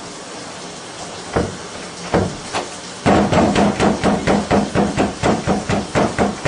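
Hand pounding on a wooden door: a few single knocks, then from about three seconds in a fast run of bangs, roughly five a second, that stops shortly before the end.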